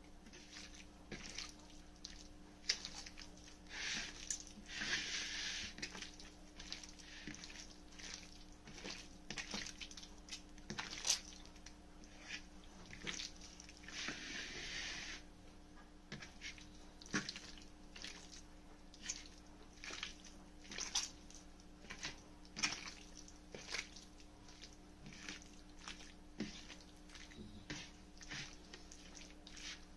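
Hands squeezing and kneading raw boneless chicken pieces in a wet marinade of lemon juice, ginger-garlic paste and spices: irregular soft squelches and squishes, with a couple of longer wet rubbing stretches.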